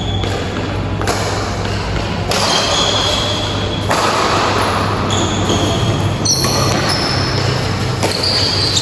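Badminton doubles rally: rackets striking the shuttlecock about once every second or two, with short shoe squeaks on the court between the hits, ringing in a large hall over a steady low hum.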